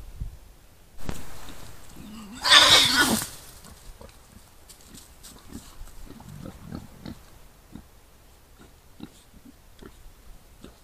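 Wild boar calling: a sudden sound about a second in, then a loud, harsh call lasting about a second, followed by scattered short low grunts and small rustles in the leaf litter.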